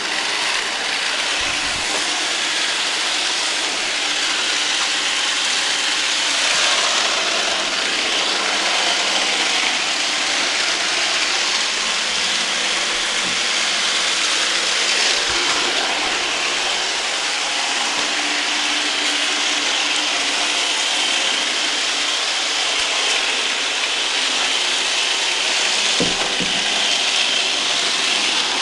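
Roomba robot vacuum cleaners running, a steady whirring hiss of suction motor and brushes, with a few faint knocks.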